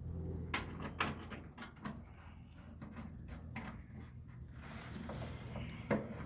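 Handling noise: several sharp clicks and knocks at irregular intervals over a steady low hum.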